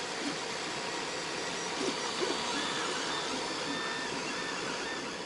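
Creality CR-10S 3D printer running a print: a steady whir, joined from about halfway by short whining stepper-motor tones that step up and down in pitch as the print head moves.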